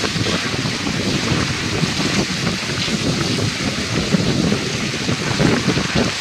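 Torrential rain pouring in a windstorm, with wind gusts buffeting the microphone.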